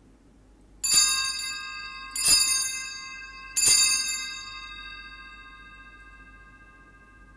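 Altar bells struck three times, about a second and a half apart, each strike ringing on with several bright tones that slowly fade; the bells mark the elevation of the chalice at the consecration.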